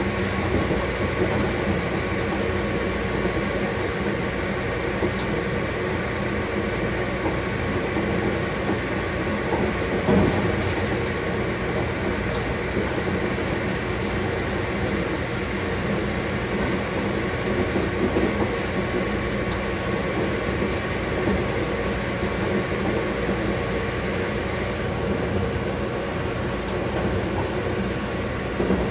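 Inside the cab of an FS E652 electric locomotive under way: a steady running rumble of wheels on rail, with a few steady tones held over it. A single louder knock comes about ten seconds in.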